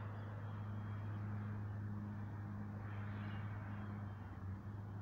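A steady low hum over a faint, even outdoor background noise, with no clear individual events.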